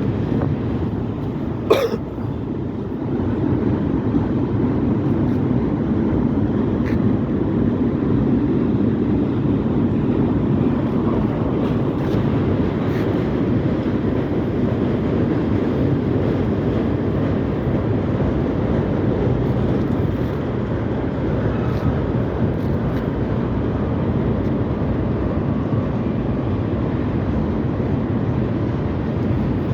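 Cars of a freight train rolling steadily past, a continuous low rumble of steel wheels on rail. There is one sharp knock about two seconds in.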